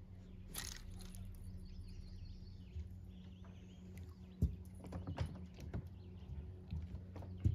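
A scatter of sharp knocks and clicks, the loudest about halfway in and another near the end, over a low steady hum, with a short rustle near the start and faint birdsong.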